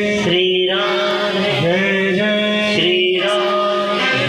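A man singing a devotional kirtan chant through a microphone and loudspeakers, holding long notes of about a second each with short pitch steps between them.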